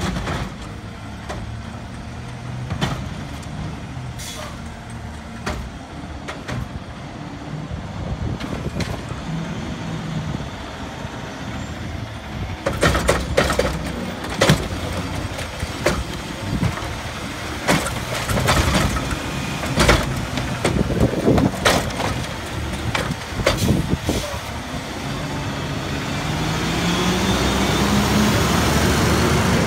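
CNG engine of an Autocar WXLL McNeilus front-loader garbage truck running low as the truck pulls up to the carts. About halfway through, a series of sharp bangs and clunks as the Curotto Can's arm grabs and dumps a cart. Near the end the engine revs up, its pitch rising, as the truck pulls away.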